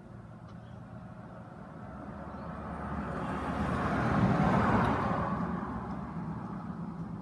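A motor vehicle passing by: a rushing sound that swells, is loudest about four and a half seconds in, then fades away.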